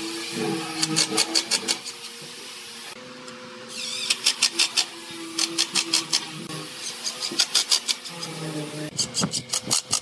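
Makita cordless impact driver driving screws into pine boards, about five in a row: each a brief motor whine, then a burst of rapid rattling hammering as the screw seats.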